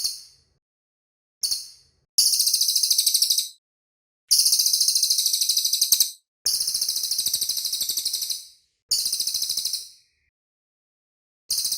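Cililin songbird singing rapid, high-pitched trills in phrases of one to two seconds, separated by short pauses.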